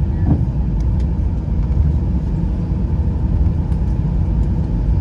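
Airbus A320 cabin noise while taxiing after landing: a steady low rumble from the idling jet engines and the wheels rolling over the taxiway.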